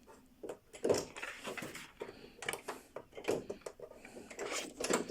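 Thin plastic reflector sheet from an LED TV's backlight being lifted out by hand, rustling and crinkling with irregular light clicks and knocks.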